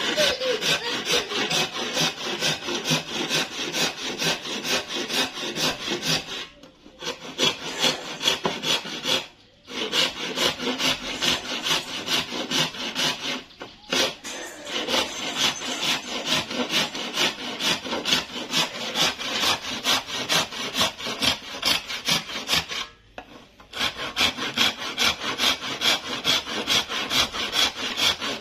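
Hand saw cutting very hard wood in steady, rapid back-and-forth strokes, stopping briefly four times.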